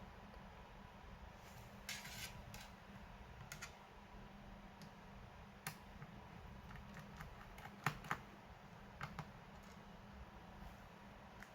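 A few scattered light clicks and taps from working on a laptop, over a steady low hum. The sharpest come as quick pairs about two seconds and eight seconds in.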